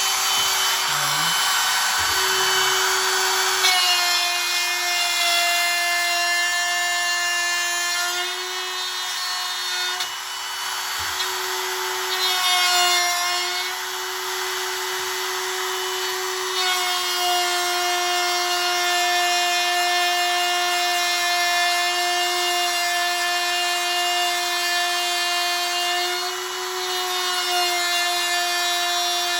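Ridgid cordless brushless router running at full speed, cutting a hinge mortise into the wooden edge of a door. Its steady whine sags in pitch several times as the bit bites into the wood under load.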